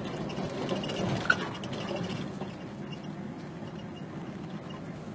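Vehicle engine and road noise heard from inside the cab while driving up an icy road, steady throughout, with one short high squeak about a second in.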